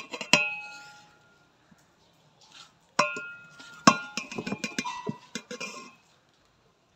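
A perforated metal spoon clinking and scraping against a metal cooking pot as it stirs and scoops cooked sweet vermicelli. The strikes ring briefly. A few come in the first second, then after a pause a quicker run of clinks follows, loudest about four seconds in.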